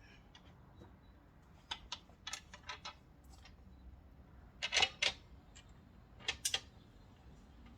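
Scattered light metallic clicks and taps in small clusters, the loudest group about five seconds in, from handling small hardware and metal parts while assembling the restored fire-alarm box.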